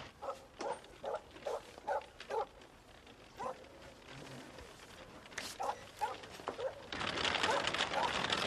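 A dog barking in short repeated barks, about seven in the first two and a half seconds and a few more further on. From about seven seconds in, a louder steady rolling noise of a horse-drawn cart joins the barking.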